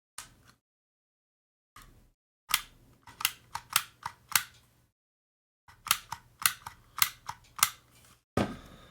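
Vintage Dymo handheld embossing label maker clicking as it is worked to emboss a label: a quick run of sharp clicks, a pause, then another run. A louder, duller sound comes just before the end.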